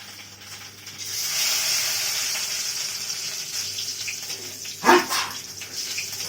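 Spices being tempered in hot cooking oil, sizzling steadily from about a second in. About five seconds in comes one short, loud human sneeze, set off by the fumes of the spices frying.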